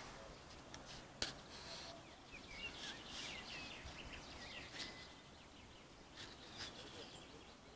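Faint small birds chirping in short, quick calls, with one sharp click about a second in.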